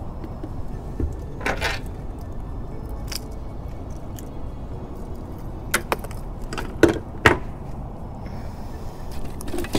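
Scattered clicks and knocks of fishing gear handled on a small boat's deck, loudest about seven seconds in, over a steady low rumble.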